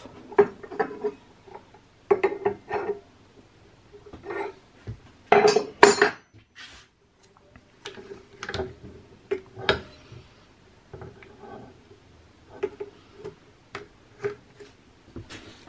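Irregular metallic clinks and knocks, some briefly ringing, from the steel collet, collet nut and cutter being handled on the spindle nose as the collet is turned half a turn and refitted; the loudest clatter comes about five to six seconds in.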